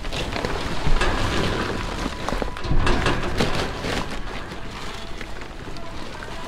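Bags of wood pellets, some sliced open, being shifted and lifted in a dumpster: a steady rustling, pattering noise with a few knocks, about a second in and again around three seconds in.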